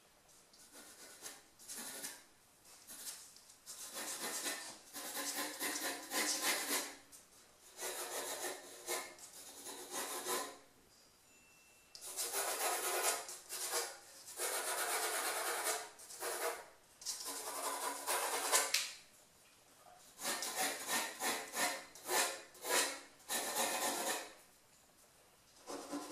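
Pencil scratching on drawing paper in runs of quick sketching strokes, with pauses of a second or two between runs.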